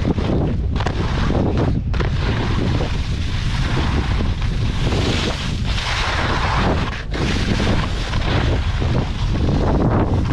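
Wind buffeting the microphone of a skier's worn camera at speed, over the hiss and scrape of skis sliding on packed snow. The scraping grows harsher around the middle, with a brief lull about seven seconds in.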